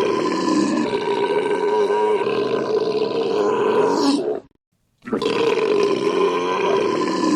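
A man's long, loud belch, held for several seconds, that cuts off suddenly about four and a half seconds in; after half a second of silence the same belch starts again.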